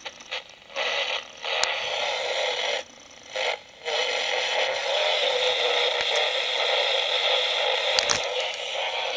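Homemade shortwave receiver with its FM-suppression antenna filter switched off: strong local FM broadcast stations break through by slope detection, heard from the set's speaker as a harsh, heavily distorted hiss. It cuts in and out a few times in the first four seconds, then holds steady.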